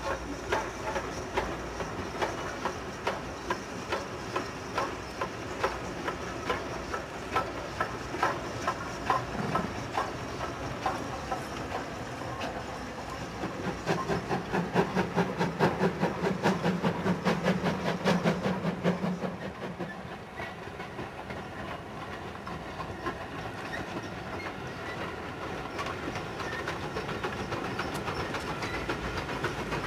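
Steam-hauled passenger train crossing an iron arch bridge, its wheels clicking steadily over the rail joints. The train grows louder with a low rumble from about 14 to 19 seconds in, then eases off.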